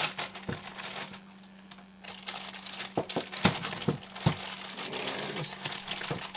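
Clear plastic bag crinkling as it is handled and pulled open around a tripod, in two spells with a short lull between, and a few dull knocks about three to four seconds in.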